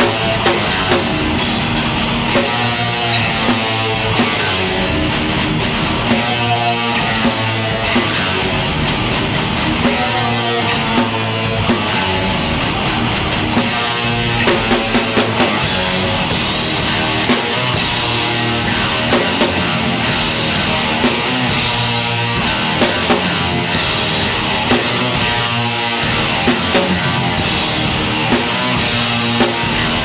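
Live rock band playing: electric guitars over a drum kit, with steady, loud drumming. The arrangement changes about halfway through.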